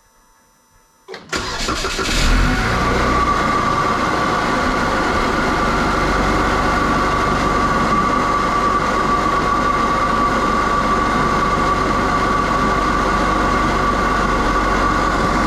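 Buick Regal GS 2.0-litre LTG turbocharged four-cylinder, fitted with a new K&N cold air intake, cranking and starting about a second in. The revs flare briefly, then it settles into a steady idle with a steady whine above the engine note.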